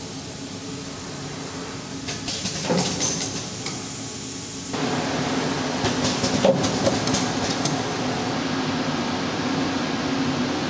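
Desktop semi-automatic lithium-ion pouch cell stacking machine running: a steady mechanical hum with hisses of air and sharp clicks from its pneumatic actuators. It gets abruptly louder a little under five seconds in.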